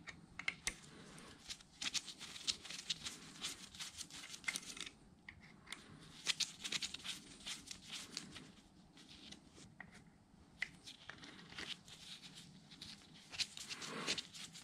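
Small metal clicks and scrapes from a hand tool working on the power-feed engagement lever of a Bridgeport mill quill housing. The clicks come in quick clusters with pauses between them, and the busiest, loudest cluster comes near the end.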